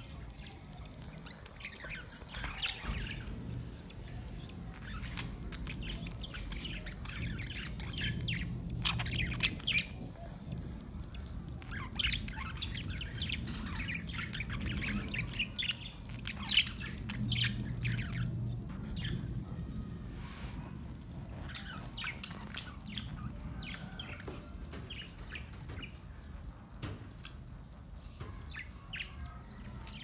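A flock of budgerigars chirping and chattering continuously, many short overlapping calls, over a steady low hum.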